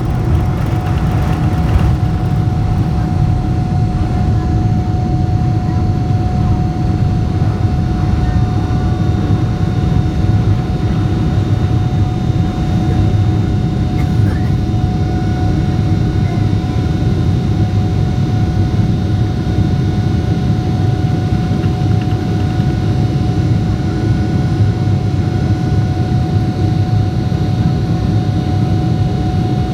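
Boeing 777-300ER's GE90-115B jet engines running at high thrust during takeoff, heard inside the cabin: a loud, steady, deep rumble with a steady whine on top.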